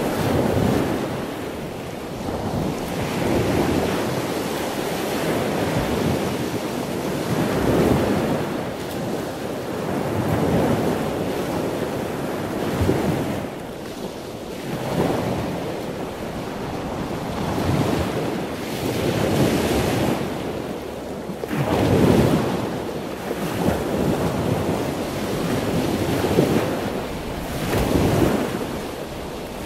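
Sea surf breaking and washing on the shore, swelling and ebbing every two to three seconds, with wind.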